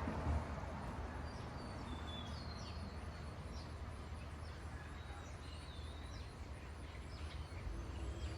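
Small birds chirping now and then in short, quick calls over a steady low background rumble, with a brief low thump just after the start.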